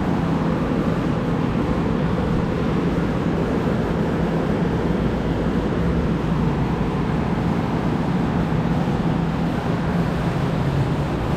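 Steady mechanical hum with a low drone and a constant rushing noise over it, unchanging throughout.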